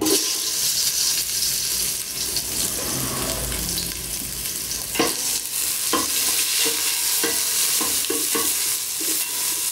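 Onion dropped into hot cooking oil in a pot, sizzling suddenly and steadily as it fries. From about five seconds in, a utensil stirs it, knocking against the pot every second or so.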